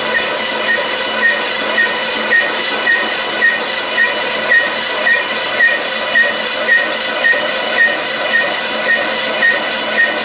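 Workshop machinery running steadily on an engine block: a loud, even hiss with a short chirp repeating about twice a second.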